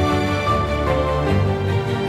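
Background music: held notes over a steady bass line.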